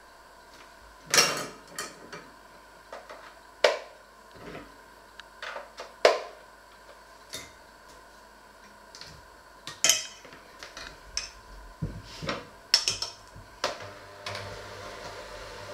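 Sharp clicks and clatter of plastic and metal as an electric hand mixer is handled and its wire beaters are fitted. About a second before the end, the hand mixer's motor starts with a steady hum.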